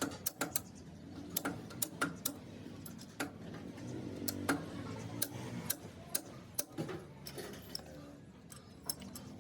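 Irregular sharp clicks and taps, roughly one or two a second, from hand tools working on the excavator hub's metal parts.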